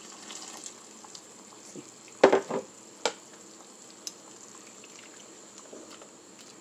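Pot of pork in tomato sauce simmering with a low sizzle, with water poured in at first and then stirred with a spatula. A cluster of loud knocks against the pot comes about two seconds in, with a single knock a moment later.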